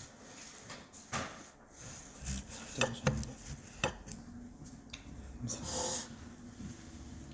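Handling noises close to the microphone: several sharp knocks and clicks of objects being moved and set down, then a brief scrape or rustle about six seconds in.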